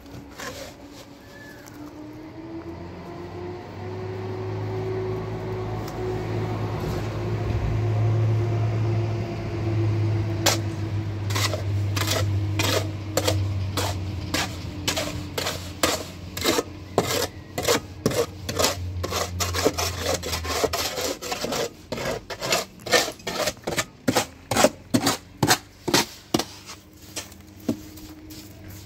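A steady low hum that swells and then dies away about twenty seconds in, joined from about ten seconds in by quick repeated scraping strokes, a few a second, as of a hand tool rubbing on a rough surface.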